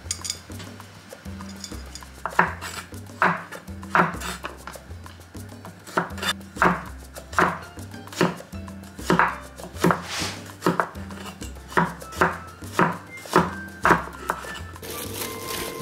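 Wide-bladed kitchen knife slicing garlic cloves on a wooden cutting board: sharp, irregular knife strikes on the board, about one to two a second, starting about two seconds in. Soft background music with a bass line plays underneath.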